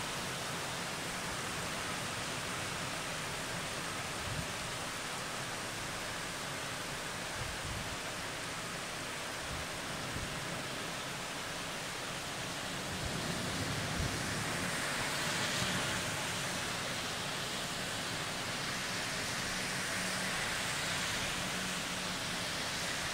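Heavy rain falling steadily, a constant hiss of downpour on the street and trees, swelling slightly about halfway through.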